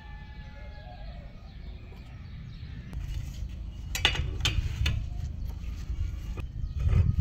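Steel bar stock clinking and knocking as it is handled and set down on a concrete floor, with a few sharp metal clinks about four to five seconds in and another near the end, over a low rumble.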